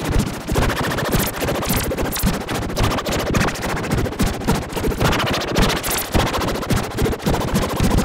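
Emergency alert system alarm: a loud, harsh electronic noise that pulses rapidly, shifting in tone about half a second in and again about five seconds in.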